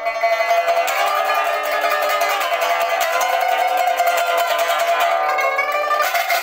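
Pipa played with rapid, continuous right-hand strokes that keep several notes sounding at once, some notes sliding in pitch, until the sound breaks off shortly before the end.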